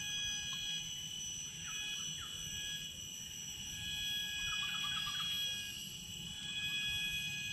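Steady multi-pitched drone of tropical forest insects, with a few short bird chirps about two seconds in and a quick cluster of them around five seconds in.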